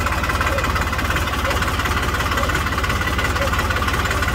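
A vehicle's engine running at low speed, with a steady, fast, even pulsing beat.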